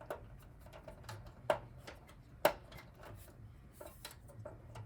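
Screwdriver and screw clicking against the metal chassis of a Power Mac G4 as a hard-to-reach screw is driven in: many small irregular clicks, with two sharper clicks about a second apart near the middle.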